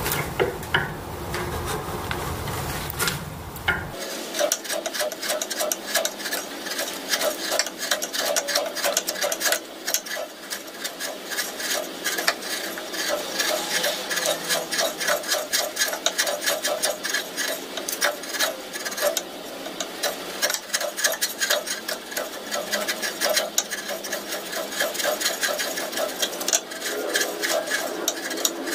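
Steel chisel paring and scraping across the end of a wooden post, a run of rapid, closely spaced cutting strokes as thin shavings come off the wood.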